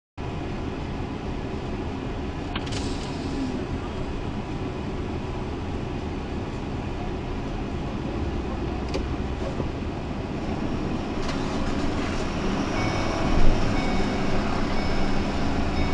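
A vehicle's engine and road noise heard from inside the cab while it moves slowly in a line of traffic, a steady hum that grows a little louder toward the end, with a few faint clicks.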